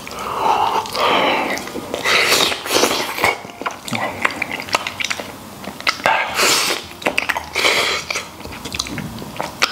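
Close-miked eating: biting into and chewing braised beef trotter meat, with many small, irregular wet mouth clicks.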